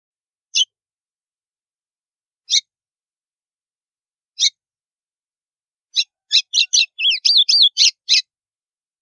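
White-throated seedeater (golinha) singing the 'estalo' song: three single sharp notes about two seconds apart, then, about six seconds in, a quick run of snapping notes and short curving whistles.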